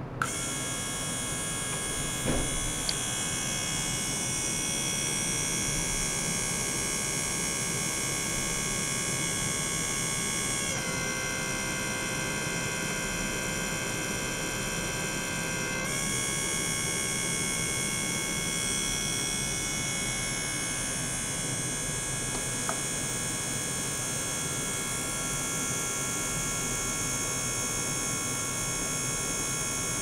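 Small ultrasonic cleaning bath running with water in its stainless tank, giving a steady high buzzing hum made of many tones that switches on abruptly at the start. About eleven seconds in the tones dip slightly in pitch, and about five seconds later they return.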